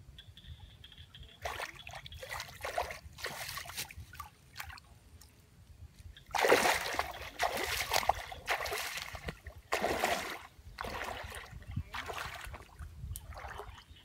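Legs wading through shallow muddy water: a run of irregular splashes and sloshes, loudest from about six to ten seconds in.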